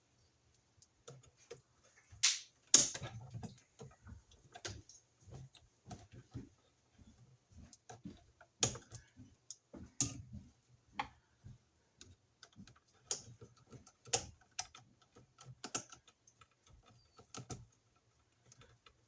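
Scattered sharp clicks and light metallic taps of hand tools and an electrical device being handled: a screwdriver working terminal screws while wires are fixed to a receptacle. Two louder clicks come about two and three seconds in.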